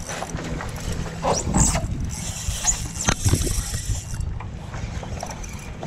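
Spinning reel on a Favorite Ol Smoky combo clicking and ratcheting in rapid runs while a hooked snook pulls against the bent rod.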